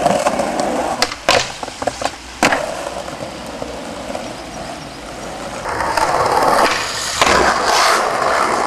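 Skateboard wheels rolling on pavement, with several sharp clacks of the board in the first two and a half seconds. The rolling grows louder about six seconds in, with another sharp hit near seven seconds.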